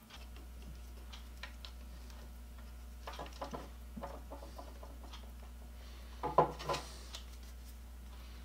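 Handling sounds of crimping a wire terminal: scattered small clicks and clinks of a hand crimping tool and plastic-insulated crimp terminals, with the loudest cluster about six and a half seconds in. A steady low electrical hum sits underneath.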